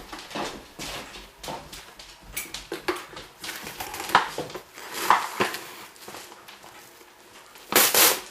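Kitchen utensils and cookware knocking and clinking as they are handled, in scattered short clicks and clunks, with a louder, noisier clatter near the end.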